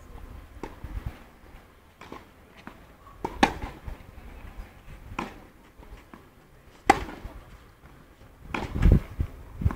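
Tennis ball struck back and forth with rackets in a rally on a clay court: a series of sharp pops, the loudest about every one and a half to two seconds.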